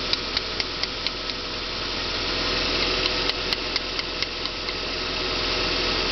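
VAZ 2112 1.6-litre engine idling with a sharp, regular knock, about four a second, coming from somewhere around the timing belt cover; the cause is not known.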